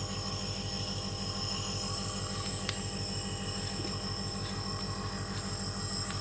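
A machine running steadily, a low drone with a fast, even pulse, with one faint click about two and a half seconds in.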